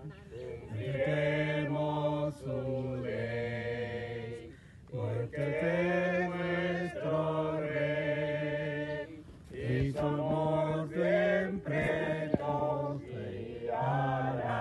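A small group of people singing a Spanish hymn together, unaccompanied, in phrases of a few seconds with short breaths between them.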